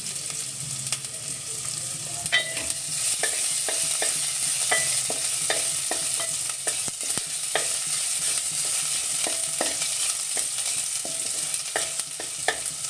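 Garlic and ginger sizzling in a little hot oil in a pan, with a steady hiss, while a spoon stirs them, scraping and knocking against the pan at irregular intervals.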